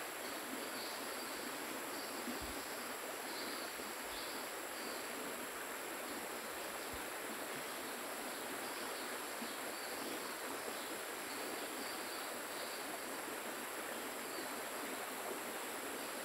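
Steady outdoor ambience: an even hiss with faint high chirps coming and going.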